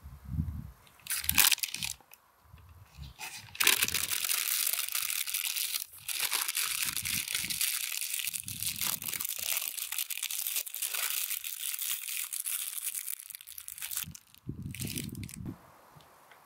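Brown paper crinkling and rustling as it is folded and wrapped around a piece of meat: a few short bursts at first, then continuous from a few seconds in until near the end, with a last brief crinkle. Dull low thumps of handling come near the start and again near the end.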